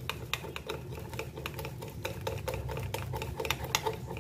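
A spoon beating thick besan (gram flour) batter in a glass bowl: a steady run of clicks and taps, about three to four strokes a second.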